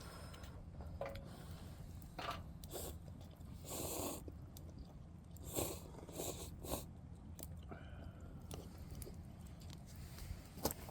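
Someone chewing and crunching food close to the microphone, with several separate bites and crunches over a steady low hum.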